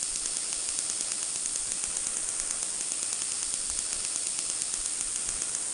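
Simulated CNC lathe machine sound from the SSCNC simulator software: a steady mechanical hiss with rapid, even ticking as the turret moves its X and Z axes to the reference position. It starts and stops abruptly.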